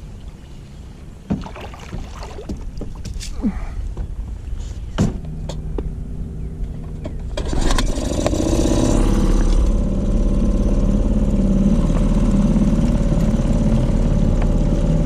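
Small Mercury 2.5 outboard motor on a canoe-style boat: a low hum with a few knocks against the hull, then about halfway through the motor throttles up to a loud, steady run as the boat gets under way.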